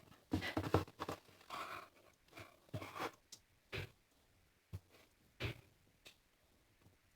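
Slime being handled: a run of irregular crackling, popping noises, dense over the first three seconds and thinning to a few isolated pops later.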